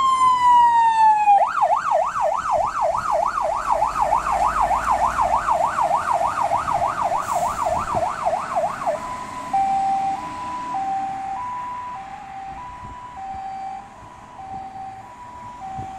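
Fire engine siren on an emergency run. A long falling wail gives way to a fast yelp for about seven seconds. Then a two-tone hi-lo takes over, growing fainter as the trucks drive away.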